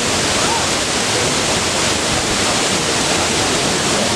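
Waterfall about 25 m tall cascading down rocky ledges: a steady, dense rush of falling water with no breaks.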